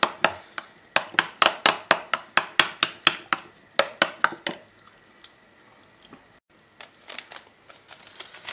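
A spoon clinking against the side of a glass bowl while stirring a thick sour cream sauce, about five quick clicks a second, stopping about four and a half seconds in.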